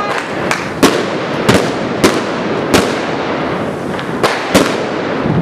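Firework cake firing, its aerial shots bursting in a string of about seven sharp bangs at uneven spacing, over a constant background crackle of other fireworks.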